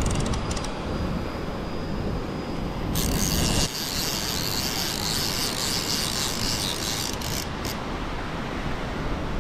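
Wind buffeting a camera microphone over the wash of surf, with a steady high rasping hiss from about three seconds in to near the end.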